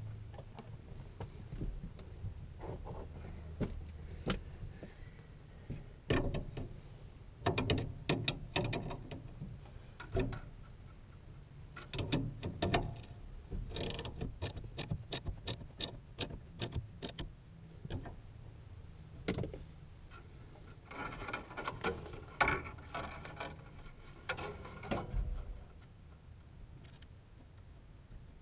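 Irregular clicks, taps and rattles of hand work with tools and metal fittings while an oil pressure gauge line is being installed, with a run of quick clicks about halfway through.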